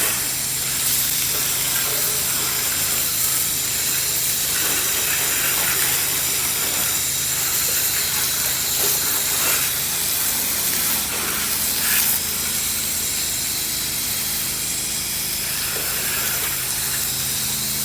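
Pressure washer spraying through a J-rod wand with a long-range shooter nozzle: a steady high hiss of the water jet, with a steady low hum underneath.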